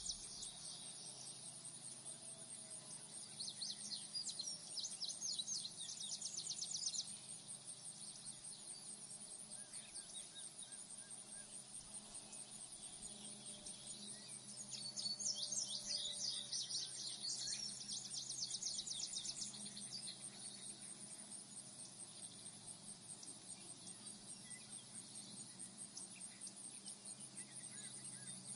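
Crickets chirping in a steady, high, fast-pulsing trill. Twice a louder bout of rapid insect trilling joins in for a few seconds.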